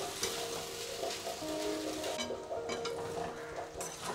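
Soft background music with held notes, over faint sizzling and the scrape of a spatula stirring vermicelli in a steel pan.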